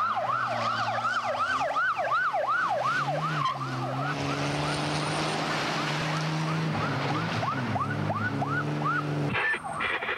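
Police vehicle siren yelping, a fast rise-and-fall about three times a second, over an engine running. The siren fades after a few seconds and cuts off abruptly near the end.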